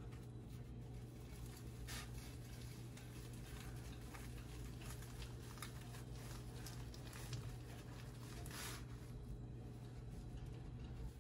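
Dried laver sheet rustling and crinkling under the hands as it is rolled up around cooked glass noodles, in soft scattered strokes, over a steady low hum.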